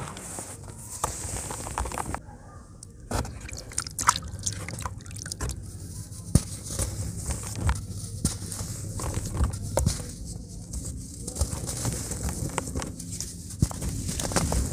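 Hands squeezing and crumbling a water-dipped chunk of cement into loose cement powder: wet crunching and dripping, with scattered sharp cracks as pieces break off.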